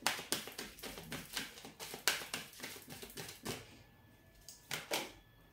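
A deck of oracle cards being shuffled by hand: a quick run of card flicks and clicks for about three and a half seconds, then two more near the end.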